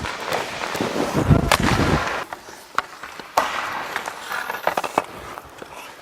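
Ice hockey practice on the rink: skate blades scraping the ice under a run of sharp cracks from sticks and pucks. Several single cracks come at uneven spacing, with a heavier, deeper thump about a second and a half in.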